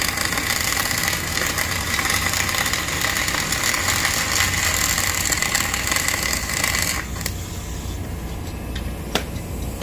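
Electric arc of a kiln-tyre weld repair, crackling and hissing steadily, then cutting off suddenly about seven seconds in. A low machine hum runs underneath, and a single sharp click comes near the end.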